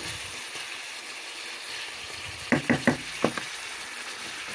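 Sliced onion and turkey sausage sizzling steadily in a frying pan, with a quick run of four or five knocks about two and a half seconds in.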